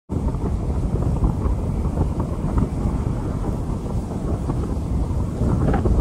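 Strong wind buffeting the microphone: a loud, steady low rumble that rises and falls a little, with a few faint ticks near the end.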